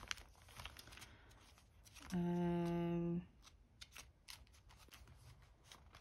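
A woman hums one steady, unchanging note for about a second, starting about two seconds in. Around it are faint clicks and rustles of plastic sticker-album sleeves and sticker sheets being handled and flipped.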